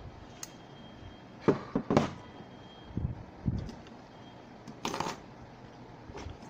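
Handling noises from a hard drive and its circuit board being picked up and turned over: a few short knocks and rustles, loudest about a second and a half to two seconds in.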